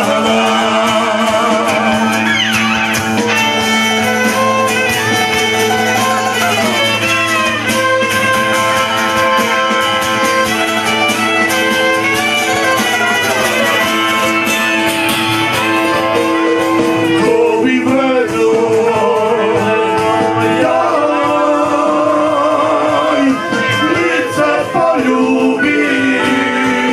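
Live band playing music with singing, a bowed fiddle with vibrato and plucked strings over a steady low drone note.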